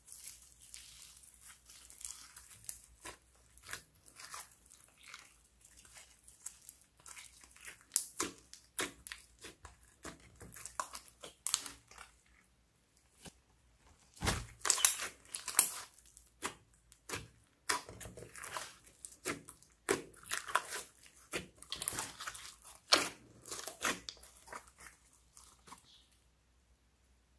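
Hands squishing, stretching and folding a large mass of slime mixed with clay and glitter: irregular sticky crackles and pops, with a quiet gap of about two seconds near the middle and another near the end.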